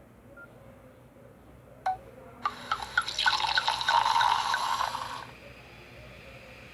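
Nokia N70 mobile phone playing a ringtone: a single click, then about half a second later a quick run of short, drip-like notes, about three to four a second, which cuts off suddenly after under three seconds.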